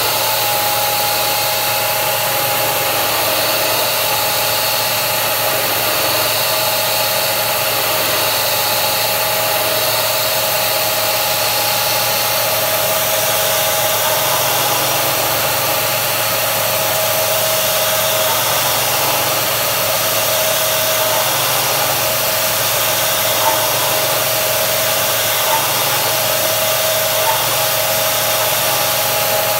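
Air-driven mist coolant sprayer hissing steadily over the steady whine of a CNC machine spindle running. Three faint ticks come in the last third.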